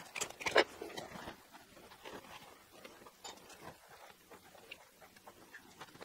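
Faint clicks and scrapes from handling an electrical socket insert and an insulated screwdriver at a flush-mounted wall box, loudest in the first second.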